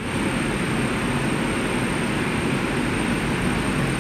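Six-colour stack flexographic label printing press running: a steady mechanical drone with a thin, steady high whine above it.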